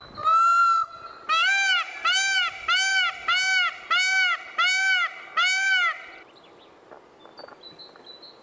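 Male Indian peafowl calling loudly: one held call, then a quick run of seven short calls, about one and a half a second, each rising and falling in pitch. The calls stop about six seconds in, and faint high chirps follow near the end.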